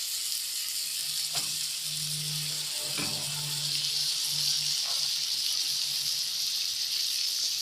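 Seafood, onion and peppers sizzling steadily in hot oil in a frying pan, with a few faint knocks.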